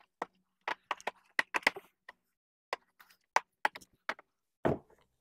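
Sharp plastic clicks and knocks in quick, irregular succession as a plastic lower grille insert is worked and pried loose from a bumper cover, its clips giving way. A duller, louder knock comes near the end.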